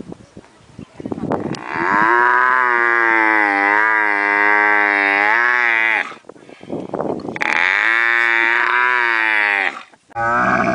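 Camel bellowing: two long, wavering, moaning calls, the first about four seconds long and the second about two and a half, each led in by rough grunting.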